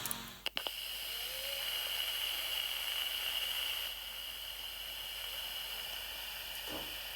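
Steady tape hiss from a Sony M-100B microcassette recorder playing back a tape with nothing recorded on it yet, with a few clicks about half a second in.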